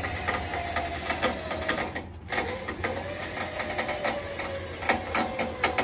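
Electric trailer winch motor whining steadily under load as it drags a truck onto a trailer, with scattered clicks and knocks.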